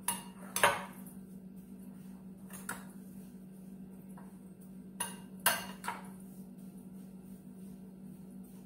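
Sharp clinks and knocks of a glass bowl against the countertop as dry rolled oats are mixed in it by hand, a handful of separate knocks with the loudest about half a second in, over a steady low hum.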